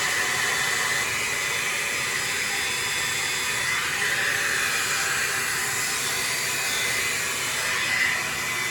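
Hot-air dryer brush running steadily, its fan blowing with a continuous hiss as it is worked through hair.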